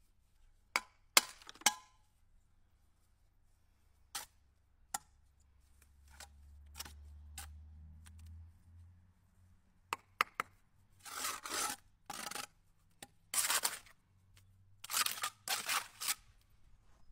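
Steel brick trowel and bricks: a few sharp taps and knocks about a second in as a brick is set into the mortar, then the trowel scraping and spreading mortar along the top of the brick course in several short strokes in the second half.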